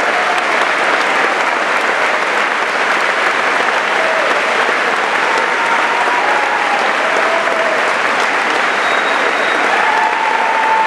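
Audience applauding steadily, with a few voices heard over the clapping.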